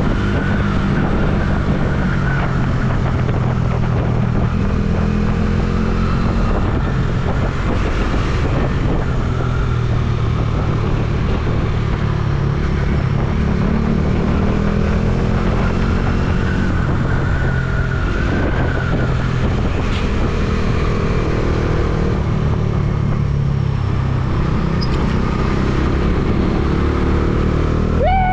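Motorcycle engine running under way, its pitch rising and falling as the rider works the throttle, over a steady rush of wind and road noise.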